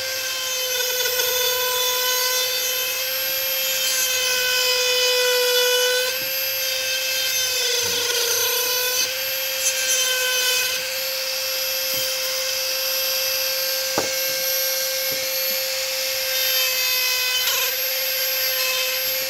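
Dremel rotary tool on a flex shaft whining steadily at high speed as a small bit grinds plunge cuts into soft pine. Its pitch dips briefly twice as the bit bites into the wood.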